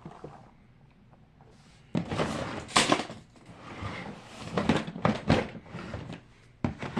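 Plastic fidget toys being handled and moved through a pile, with a run of irregular clattering knocks and rustles starting about two seconds in.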